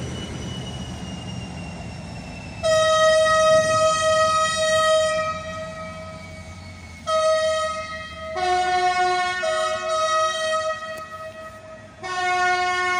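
Train horns blowing long held blasts. A single high note sounds about a quarter of the way in and again a couple of seconds later. From about two thirds of the way in, a lower note joins it in a two-tone chord. A low diesel engine rumble underlies the first couple of seconds.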